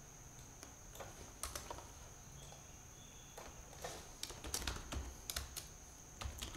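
Typing on a computer keyboard: irregular, faint key clicks, sparse at first and coming thicker in the second half, over a steady high-pitched whine.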